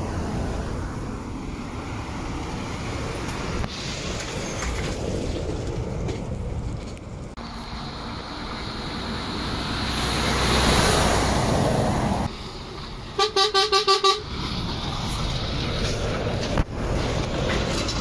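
A lorry driving past with its engine running, louder as it draws level, then its horn sounding five short toots in quick succession near the end.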